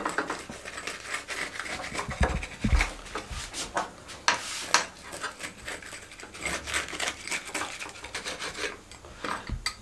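Pizza cutter wheel rolling through a cooked egg-and-cheese paratha, cutting it into slices in repeated scraping strokes with irregular clicks.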